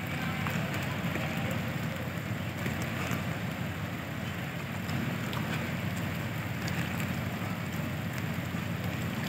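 Heavy rain pouring steadily, with scattered drop ticks over a low, even rumble.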